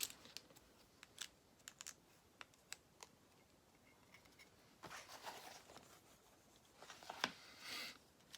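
Small plastic Lego pieces clicking and tapping as they are picked up and pressed together, with soft rustling of handling about five seconds in and again near the end.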